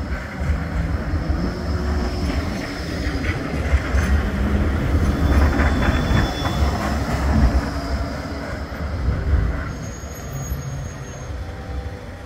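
Bombardier Flexity 2 light rail tram running past on street track, loudest about halfway through as it goes by close. A thin, high wheel squeal comes and goes.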